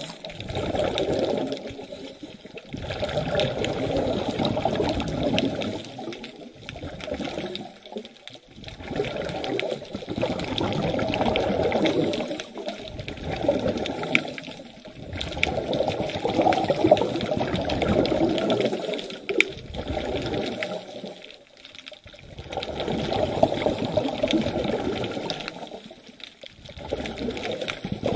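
Scuba diver breathing through a regulator underwater: a burst of bubbling exhaust bubbles every few seconds, with short quiet pauses between them while the diver inhales.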